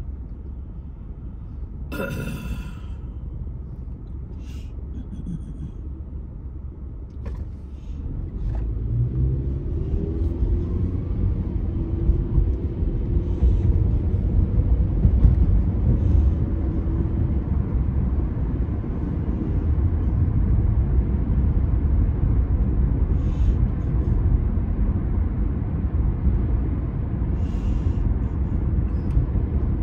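Car road noise heard from inside the cabin: a steady low rumble of engine and tyres that grows louder about eight seconds in as the car pulls away from a stop and picks up speed.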